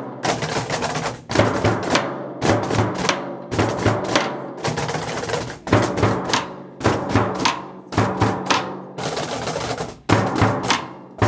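Drum ensemble played with felt mallets: quick groups of sharp, ringing strikes alternating with rolls, in a steady repeating rhythm.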